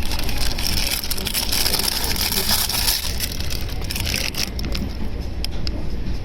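Z59 express passenger train running on the track: a steady rumble with a hiss and a dense run of clicks and rattles.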